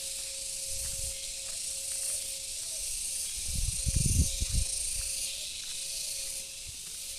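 Steady high-pitched hiss of outdoor ambience with a faint steady hum under it. A brief low rumble on the microphone comes about three and a half seconds in.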